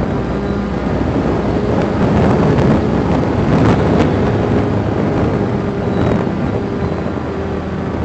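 Strong wind rushing and buffeting over the onboard microphone of a Volantex Ranger 757-3 RC plane in flight. Under it is the steady hum of the plane's 3715 brushless outrunner motor and pusher propeller.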